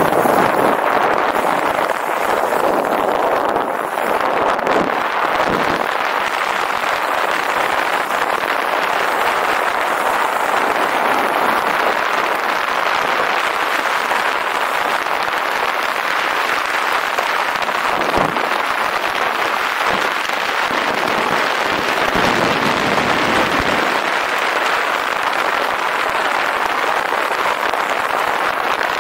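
Steady rushing noise of a fast downhill bicycle ride: tyres running over a rough, gravelly track with wind on the microphone.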